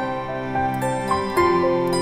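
Calm new-age background music: plucked notes over held tones.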